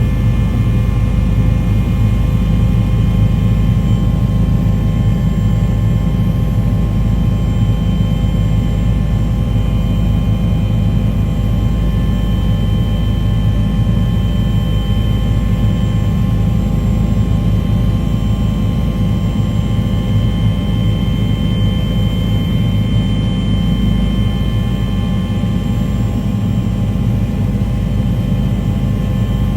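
Steady engine noise: a low rumble with several constant whining tones held above it, unchanging throughout.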